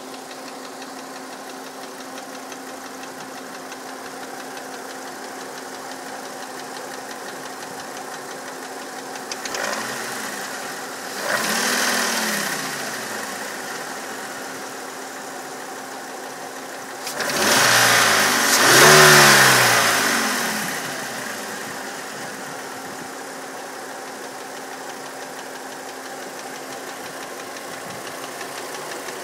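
Volkswagen Passat's 2.3-litre five-cylinder VR5 engine idling steadily. It is blipped and falls back to idle: lightly about ten seconds in, a quick rev soon after, and two higher revs about two-thirds of the way through. The owner cannot say what causes an odd noise in it.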